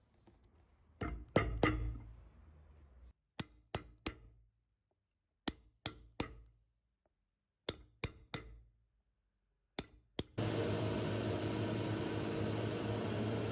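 Hammer tapping in a shoe-repair workshop: sharp, ringing metallic strikes in quick groups of two or three. A steady machine noise starts about ten seconds in.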